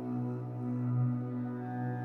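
Background music: slow ambient synth pad with long, sustained, swelling chords.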